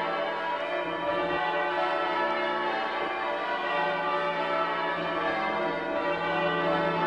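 Church tower bells change ringing a peal: the bells are struck one after another in an even, unbroken stream, their tones overlapping.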